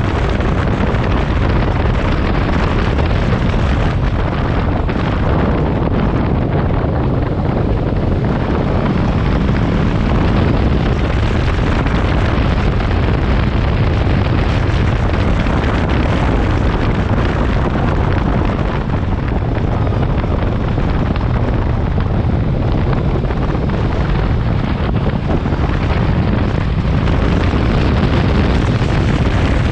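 Heavy wind buffeting on the microphone of a motorcycle being ridden at about 60–70 km/h, a dense, steady rumble with engine and road noise underneath.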